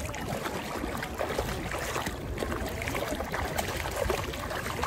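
Shallow seawater sloshing and splashing around a toddler's feet as he wades through it, with many small splashes over a steady wash of water.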